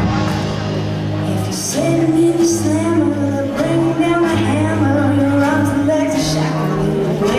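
Live band music, with women's voices starting to sing about two seconds in over steady held accompaniment notes.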